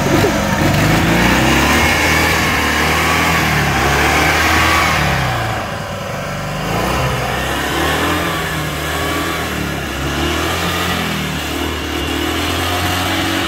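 Steyr-Puch Haflinger's air-cooled flat-twin engine revving up and down as the vehicle drives off-road over a dirt track. It fades slightly around the middle, then grows louder again.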